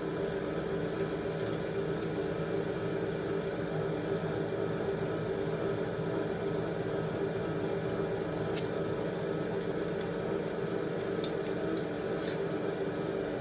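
Milling machine running steadily while it cuts a flute into a screwdriver handle, with a few faint ticks near the end.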